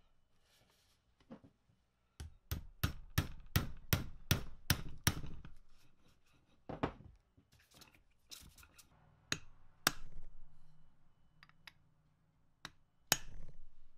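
Sharp metal clicks and clacks from the indexing mechanism of a lathe's hex-turret tailstock as it is worked by hand. A quick run of about eleven clicks comes over some three seconds, followed by scattered single clicks.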